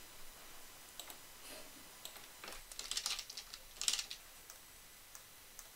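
Faint computer keyboard typing: a quick run of keystrokes about two and a half to four seconds in, with a few single clicks before and after it.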